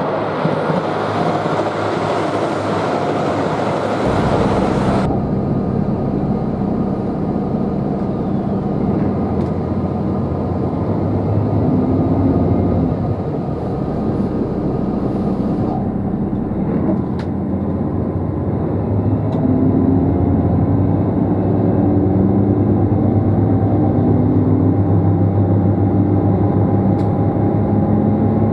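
JR Shikoku 2700 series diesel trainset: for about the first five seconds a wide rushing noise of the train running along the track, seen from the lineside. Then, from inside the car, a steady low diesel engine hum whose pitch rises steadily through the second half as the train picks up speed.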